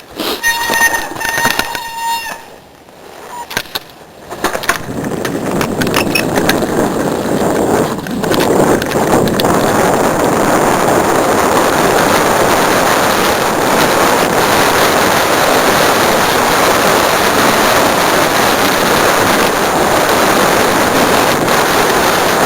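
Mountain bike riding along a dirt trail: a loud, steady rush of tyre rumble and wind noise that starts about four seconds in. Before it comes a brief high-pitched squeal, lasting about two seconds.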